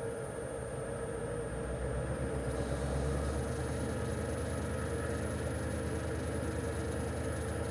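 Metal lathe running, motor and spindle humming steadily, growing a little louder about two and a half seconds in.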